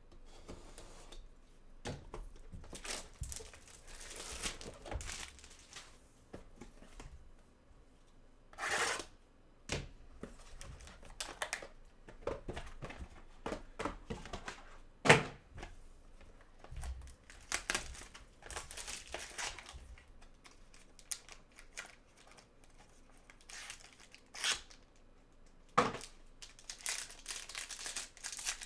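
Trading-card pack wrappers being torn open and crinkled, with cards shuffled and handled in between. There is one sharp click about halfway through and another near the end.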